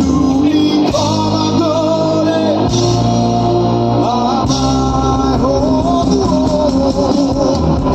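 Live rock band playing loud: a lead singer's sung melody over electric guitars and bass, with the chord changing every second or two.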